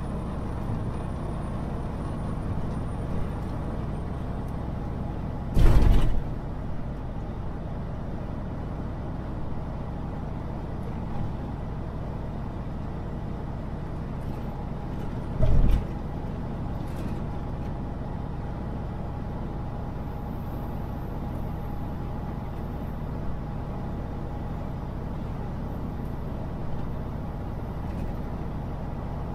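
Semi truck on the road, heard from the cab: a steady engine and road rumble. Two loud, short thumps come through it, about six seconds in and again about ten seconds later.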